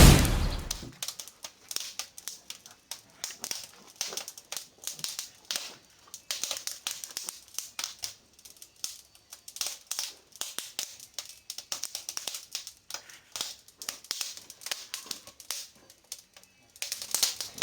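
Wood burning in a fireplace, crackling and popping in a dense, irregular patter of sharp snaps. A loud low thump sounds at the very start.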